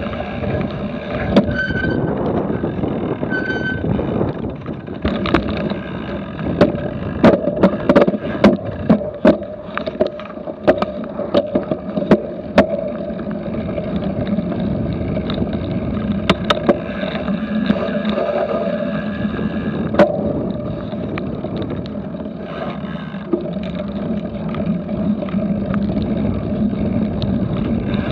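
Cyclocross bike ridden over rough grass: a steady rumble of tyres and wind, with a run of sharp rattles and knocks in the middle as it bounces over the bumps.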